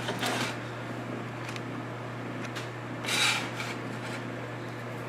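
Two brief scraping, rubbing sounds, one just after the start and a louder one around three seconds in, as multimeter probes are handled and set against the fuses on a monitor chassis board, over a steady low hum.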